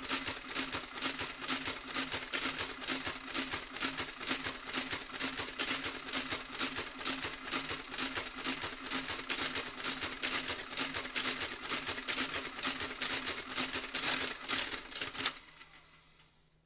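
Olivetti Divisumma 14 electromechanical printing calculator running an automatic division: a rapid, even clatter of the mechanism cycling over a steady motor hum. It stops suddenly near the end and dies away.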